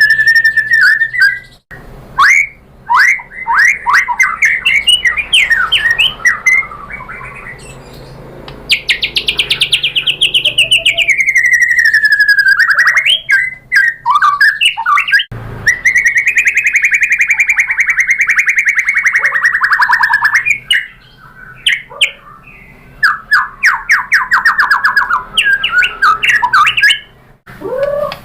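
White-rumped shama singing loudly in full song, a varied mix of quick runs of sharp chipping notes, a long buzzy note sliding downward, and a long trilled whistle, with short pauses between phrases.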